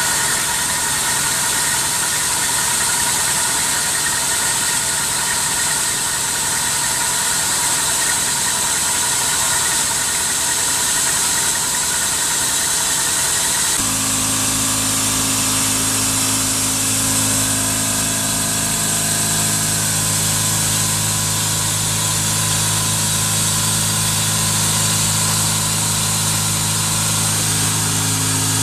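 CNC milling machine's end mill cutting a metal T-piece under flood coolant: a steady machining whine over the hiss of coolant spray. About halfway through the sound changes abruptly to a deeper, steady hum.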